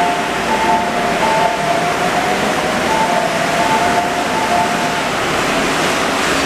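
Osaka Monorail rubber-tyred train running past the platform, a steady rushing noise. A repeating two-note electronic tone sounds over it until about five seconds in.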